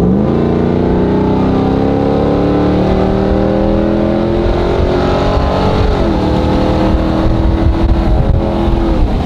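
Ram TRX's supercharged 6.2-litre V8 accelerating through a Corsa Extreme exhaust. The pitch climbs for about six seconds, drops with an upshift, then holds nearly steady.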